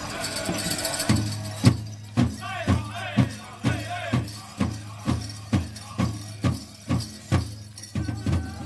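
Powwow drum group playing: a large drum struck in unison about twice a second, with singers' voices over it.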